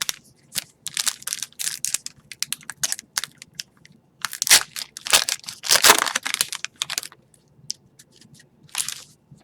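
Upper Deck hockey card pack wrapper being torn open and crinkled, heard as a series of short rustling bursts, loudest in the middle.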